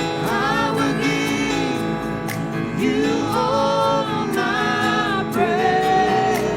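Gospel worship music: voices holding long sung notes over steady instrumental chords, with a light cymbal beat.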